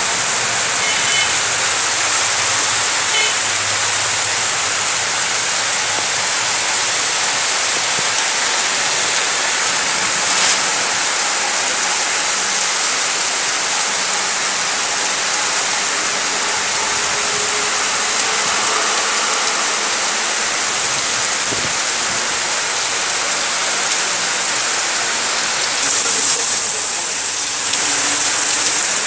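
Heavy rain falling steadily on the ground, puddles and surrounding roofs and trees, an unbroken hiss that swells briefly near the end.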